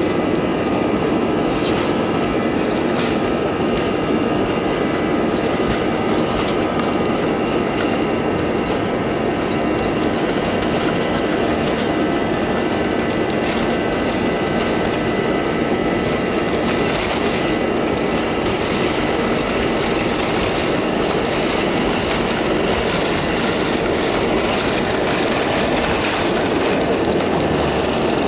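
Airbus A320 jet engines running at takeoff thrust, heard from the cabin over the wing during the takeoff roll: a loud, even rush with a steady high whine of several tones above it.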